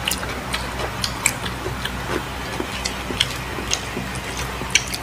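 Mukbang eating sounds: chewing and mouth clicks, with irregular sharp clicks a few times a second over a steady low hum.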